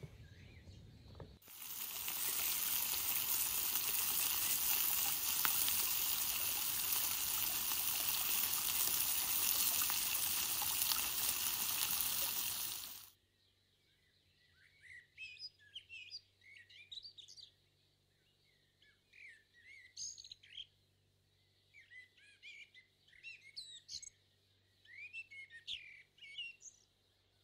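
A steady, loud rushing hiss lasts about eleven seconds and then cuts off suddenly. After it come birds chirping and whistling in many short, quick calls.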